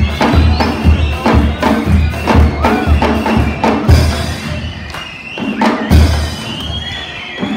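School cadet marching band playing: bass drums beating about twice a second with cymbal crashes, under a high melody line. The drumming thins out briefly a little past halfway, then comes back in.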